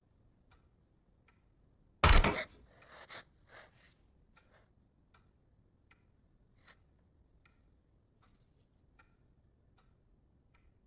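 Horror film sound effects: a sudden loud hit about two seconds in, followed by a few fainter knocks, then a slow, faint, regular ticking, about one tick every three-quarters of a second.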